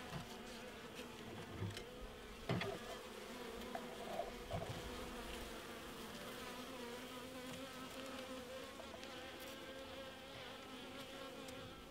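Steady buzzing hum of a mass of honey bees. A single knock about two and a half seconds in, with a few lighter clicks, as the wooden bee box is handled.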